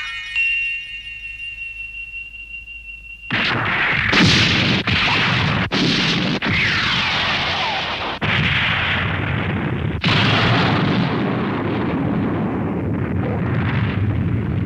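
Cartoon sound effects: a thin, steady high whine for about three seconds, then a loud, long explosion rumble with repeated blasts as a fireball bursts in space.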